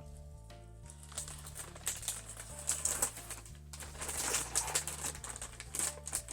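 Dry crackling and crunching from Doritos Dinamita rolled tortilla snacks and their packaging, starting about two seconds in and heaviest in the second half. Soft background music with a low bass line plays underneath.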